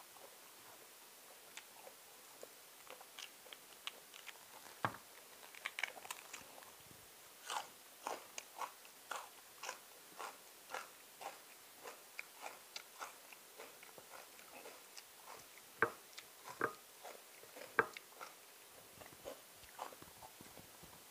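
A person eating crunchy raw food close to the microphone: many short crisp crunches and chewing noises, with bites of raw red shallot among them.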